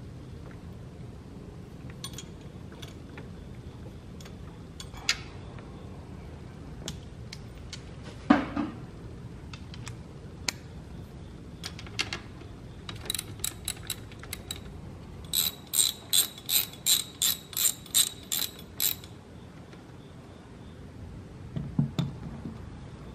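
Ratchet wrench clicking in quick runs, about three to four clicks a second, as a bolt on a car alternator is turned. There are scattered tool taps and one louder metal clunk about eight seconds in.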